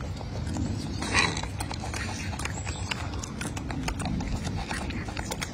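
Golden snub-nosed monkey chewing orange segments: a run of small wet mouth clicks and smacks, with a brief louder rustle about a second in.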